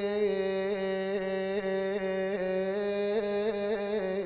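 A man chanting an Iraqi Shia lament (na'i) in a melismatic style, holding one long note with small trilled ornaments that come faster toward the end.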